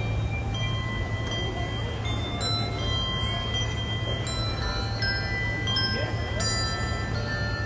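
Handbell ensemble playing a carol: bell notes struck one after another at different pitches, each ringing on as the next sounds, over a steady low background hum.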